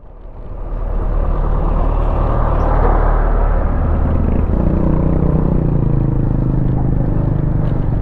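Motorcycle engine running as the bike rides on, swelling over the first second. A steadier low engine note comes in about halfway.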